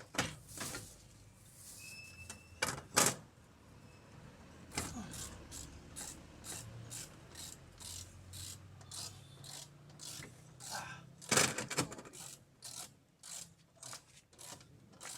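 Hand tools working on a car's suspension: scattered metal clicks and knocks, two louder knocks among them, then a quick even run of clicks, about two or three a second, near the end.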